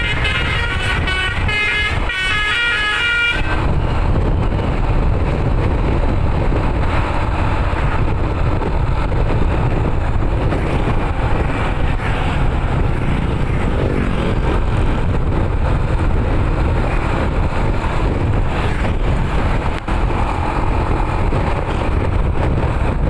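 A bus's telolet horn plays a quick stepped multi-note melody and cuts off about three seconds in. Then the bus's steady engine and road rumble continues.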